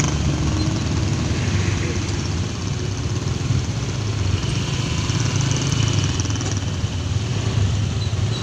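Road traffic: a steady mix of car engines idling and running slowly in a long queue at a red light, with a constant low engine hum under a wash of road noise.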